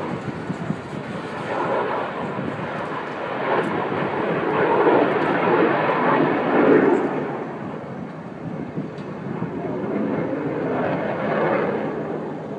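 Rumble of a freight train's hopper cars rolling away on the rails past a grade crossing, a steady noise of wheels on track that rises and falls a couple of times.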